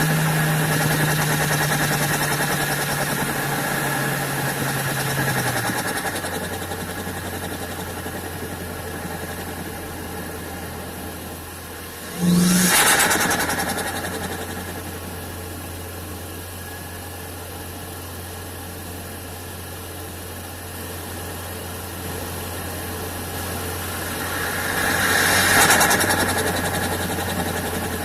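Seat Ibiza Cupra's 1.8-litre turbocharged four-cylinder engine, heard from inside the air intake box. Its steady note drops to idle about five seconds in and then holds there. About twelve seconds in comes a sudden loud rush of intake air that fades over a couple of seconds, and near the end a second, gentler swell rises and falls.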